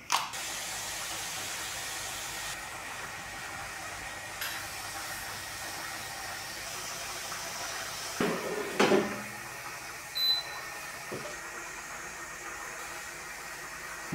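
Steady whooshing hiss of a preheating air fryer's fan, with a few light knocks as bell peppers are handled on a plate and a wooden cutting board, the loudest about eight seconds in. A brief high tone sounds around ten seconds in.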